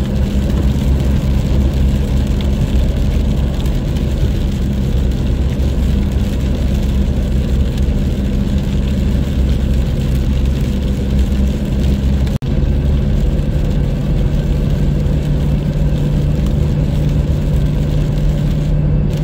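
Steady in-cabin drone of a vehicle driving at motorway speed on a wet road: engine hum under a constant wash of tyre and road noise. About twelve seconds in there is a brief break, after which the engine hum sits a little lower in pitch.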